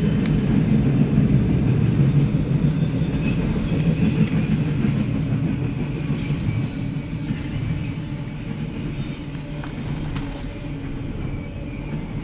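Double-stack intermodal freight train's well cars rolling past: a steady low rumble of steel wheels on rail with a few sharp clanks and a faint wheel squeal, slowly getting quieter.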